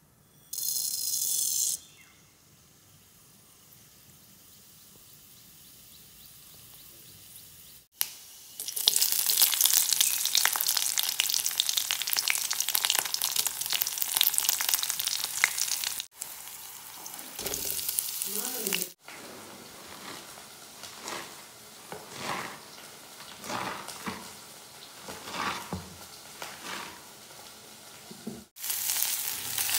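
Hot oil in a wok: a brief burst of sizzling as mustard seeds go in, then a long stretch of loud crackling sizzle as garlic cloves and dried red chillies fry. Later come quieter, irregular short knocks and rustles.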